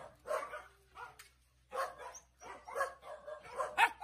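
Dogs barking in short, irregular barks, with a brief lull about a second and a half in.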